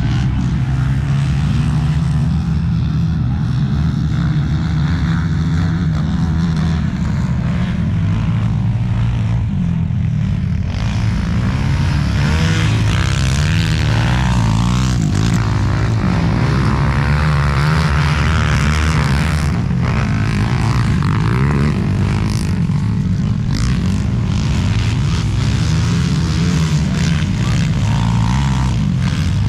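Racing motorcycle engines running loud and continuous, their pitch wavering up and down through the middle as they rev and pass.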